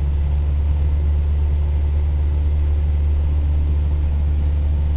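Cessna 172's piston engine and propeller heard from inside the cabin in flight: a loud, steady, low drone that holds an even pitch throughout.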